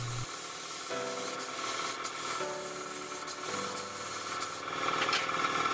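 Gravity-feed air spray gun hissing steadily as it sprays finish onto wooden drawer boxes.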